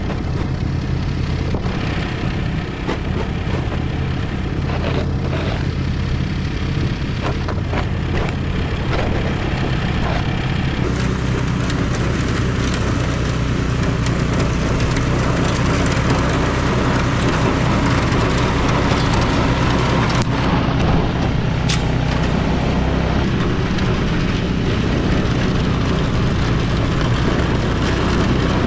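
Vehicle engine running steadily, getting louder about eleven seconds in, with scattered knocks and clicks during the first ten seconds.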